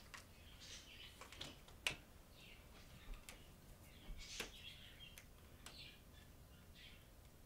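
Faint, scattered high bird chirps and a few soft, sharp clicks over quiet room tone.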